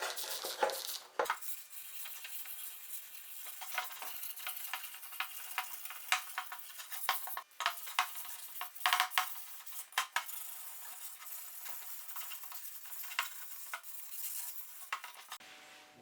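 Hand work scraping and rubbing on a metal surface, a steady scratchy noise broken by many sharp little clicks and knocks, typical of stripping old paint and rust from the moped's sheet-steel fuel tank.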